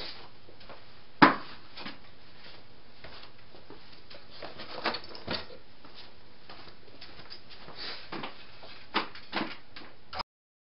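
Steady hiss of room tone in a small room, broken by one sharp knock about a second in and scattered lighter knocks and taps as a person moves about and handles things. The sound cuts off just before the end.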